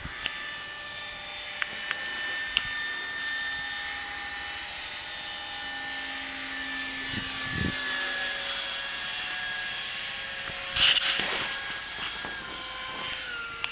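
Electric ducted-fan RC model jet (a large Cutlass) flying overhead: the whine of its fan, with several tones sliding slowly down in pitch as it passes. A short, louder rushing burst with a few clicks comes about eleven seconds in.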